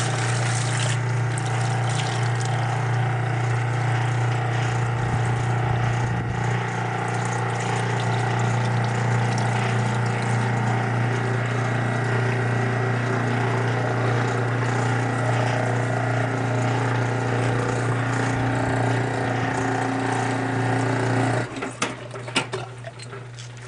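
Kenmore wringer washing machine's motor and drain pump running, pumping the wash water out of the tub with a steady electric hum. The hum drops off sharply near the end as the draining finishes.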